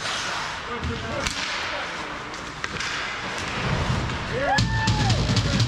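Live ice hockey play in an indoor rink: skates scraping the ice, with sharp clacks of sticks and puck. A brief shout about four and a half seconds in.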